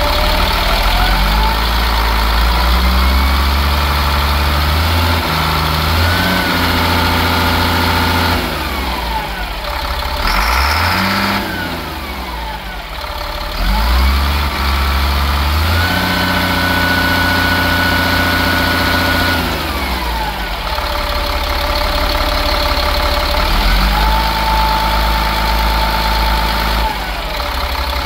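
Freightliner FL70 truck's diesel engine revved up from idle and held at higher revs three times, dropping back to idle between each. There is a short burst of hiss about ten seconds in.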